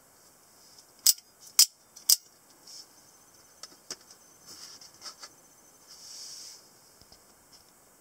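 Spring-driven blades of out-the-front automatic knives snapping, three sharp clicks about half a second apart a little after a second in. They are followed by fainter clicks and rustling as the knives are handled and laid down.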